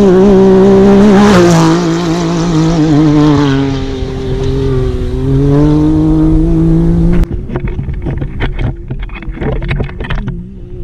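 Can-Am Maverick X3 UTV's turbocharged three-cylinder engine running hard as the car drives past on sand, its pitch dropping as it goes by, then falling and rising again with the throttle. About seven seconds in the engine sound cuts off suddenly, leaving scattered knocks and clatter.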